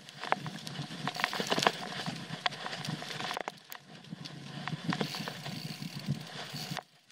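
Trek Full Stache 8 mountain bike ridden over a dirt trail: tyres rumbling on the ground, with frequent sharp clicks and rattles of the bike over bumps. The noise dips briefly near the end.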